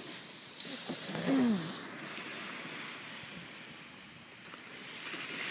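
Surf washing on the shore, a steady rush that swells near the end. A short murmured voice about a second and a half in.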